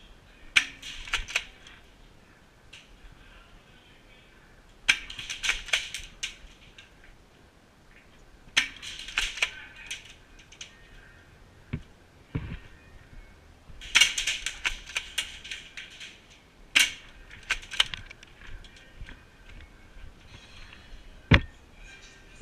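Airsoft guns firing in short bursts of rapid sharp clicking shots, about five bursts spread through the stretch, with a few single louder cracks between them.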